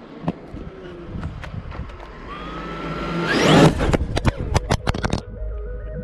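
Traxxas X-Maxx RC monster truck's brushless electric motor whining and rising in pitch as it speeds in, peaking in a loud rush of tyres on rough asphalt about three and a half seconds in. A quick run of sharp knocks and scrapes follows as the camera is sent tumbling, and synth music starts near the end.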